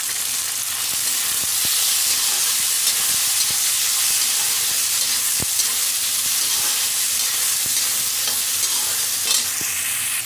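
Freshly added tomatoes and sliced onions sizzling in hot oil in a kadhai, a steady frying hiss, with a metal spatula clicking and scraping against the pan as they are stirred.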